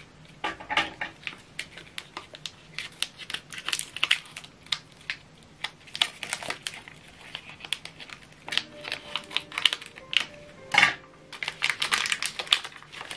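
Thin plastic bag around a printer ink cartridge crinkling as it is handled and unwrapped: a rapid, irregular run of short crackles, with a louder crackle about eleven seconds in.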